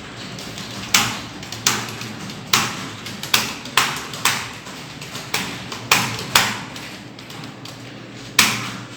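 Computer keyboard keys struck one at a time: about ten sharp clicks at uneven intervals, each ringing briefly, over a faint steady hum.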